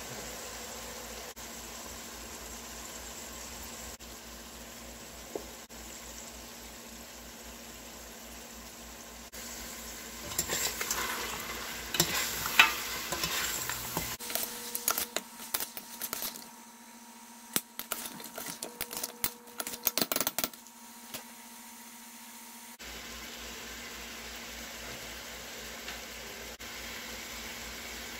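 Goat meat sizzling steadily in an open stainless steel pressure cooker pot. Partway through, a metal spoon stirs the meat for about ten seconds, clattering and scraping against the pot.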